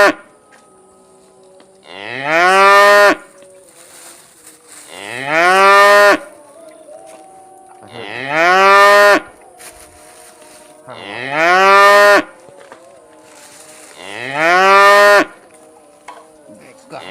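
Cow mooing five times, about every three seconds. Each call is loud, about a second long, and rises in pitch before levelling off.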